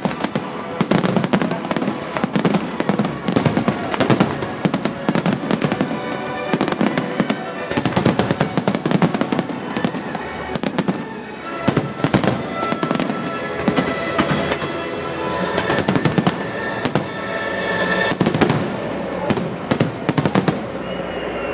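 Fireworks finale: dense, rapid volleys of aerial shell bursts and crackling bangs, one after another without pause, with music playing underneath.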